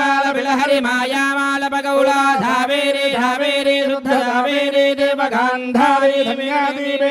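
Male priests chanting Sanskrit verses into microphones, reciting in a steady, nearly level tone with rapid syllables.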